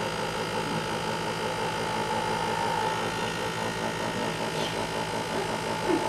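Nespresso Vertuo coffee machine brewing an espresso: a steady mechanical hum as the coffee runs into the cup.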